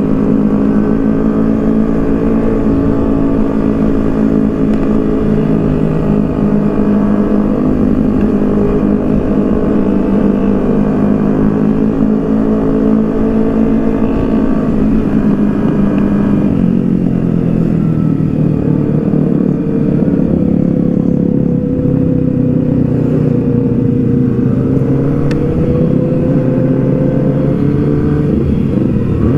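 Kawasaki ZX-6R 636 inline-four engine heard from the rider's seat, running at steady cruising revs. About halfway through the revs drop as the bike slows, and it then runs on steadily at lower revs.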